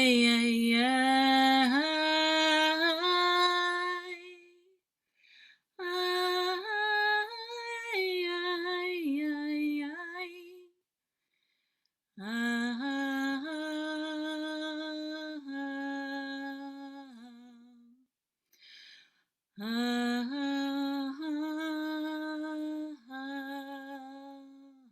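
A woman singing wordlessly and unaccompanied, improvising freely. She sings in four long phrases of sliding and held notes, with short breaths between them.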